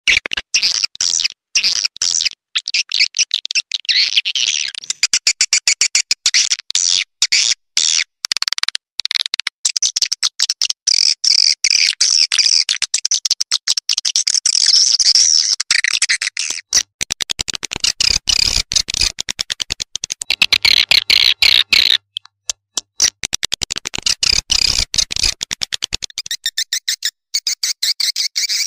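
Swiftlet lure call (suara panggil walet), a recording of swiftlet calls played to draw birds to a swiftlet house: dense, rapid, high-pitched twittering and chirping, chopped by many short gaps.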